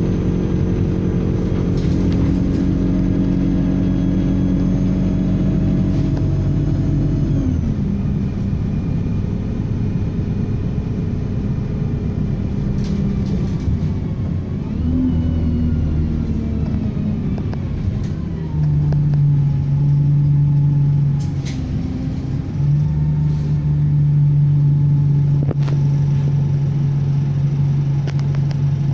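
Diesel engine of a Stagecoach Sheffield service bus running under way with a high turbocharger whistle above the engine note. The engine tone drops off about seven seconds in, shifts in pitch through the middle as the bus changes speed, then holds a strong steady note for the last ten seconds, with a few sharp clicks.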